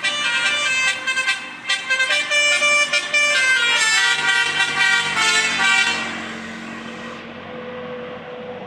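Tour bus telolet horn playing a fast, loud multi-tone melody, its notes changing several times a second; it stops about six seconds in, leaving the bus's engine and road noise.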